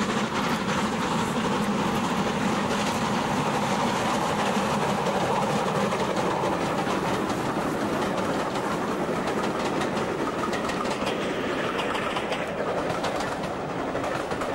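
Two steam locomotives, an N class and a U class 2-6-0 double-heading, working up a gradient past at close range, their exhaust beats mixing with the rattle and clatter of the coaches over the rail joints as the train goes by. The sound thins a little near the end as the train draws away.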